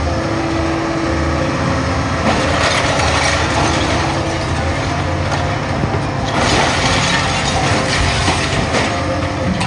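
Excavator's diesel engine running under hydraulic load, with crunching and clattering as its bucket tears at a shattered glass-and-metal building front. The clattering grows louder in two spells, about two seconds in and again about six seconds in.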